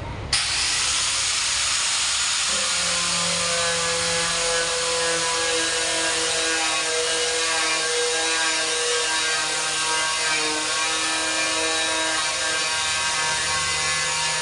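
Grinder sanding a dented car body panel down before body filler is applied: a steady gritty hiss with a motor hum, starting abruptly at the very beginning, with a steadier pitched hum settling in a couple of seconds in.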